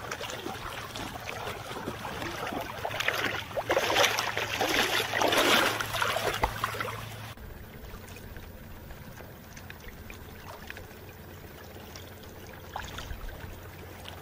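Water splashing and trickling in the shallows around sea kayaks, loudest between about three and six seconds in. After an abrupt change a little past halfway, quieter water lapping with a few faint drips.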